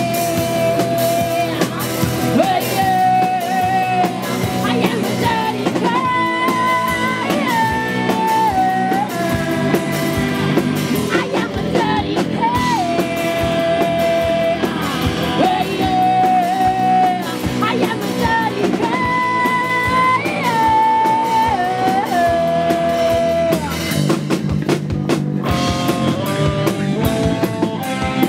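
All-female punk-rock band playing: a woman singing a melody of long held notes over electric guitars, bass guitar and drum kit.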